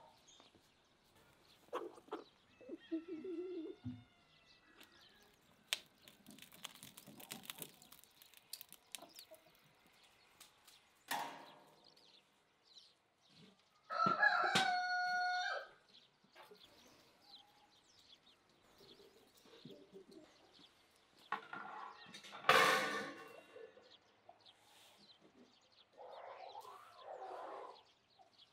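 A rooster crows once, a long call about halfway through, among scattered small bird chirps and faint knocks. A few seconds later comes one short, loud, sharp noise.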